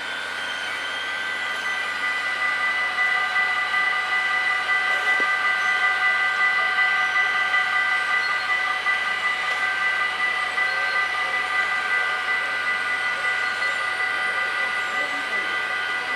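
Dutch automatic half-barrier level-crossing warning bells ringing continuously as the barriers come down. Several bells sound together as a steady tone of several pitches, growing louder about two seconds in.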